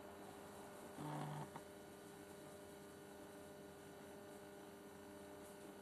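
Near silence with a steady low electrical hum. About a second in there is one brief pitched sound lasting about half a second, followed by a faint click.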